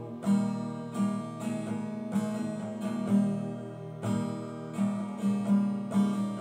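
Nylon-string classical guitar strummed in a steady rhythm of chords, an instrumental passage with no singing.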